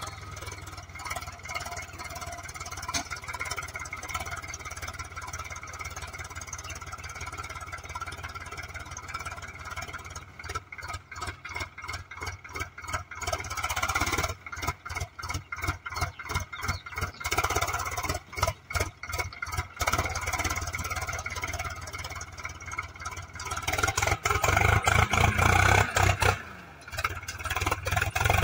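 Swaraj 744 XT tractor's three-cylinder diesel engine working under load while pulling a fully loaded sugarcane trailer. The engine note pulses rhythmically through the middle and grows louder near the end.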